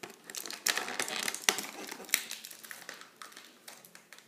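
Packaging crinkling and crackling as it is handled, a dense run of sharp crackles that thins out toward the end.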